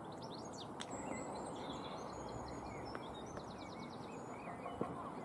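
Birds chirping and singing over a steady outdoor background hush, with a few faint clicks.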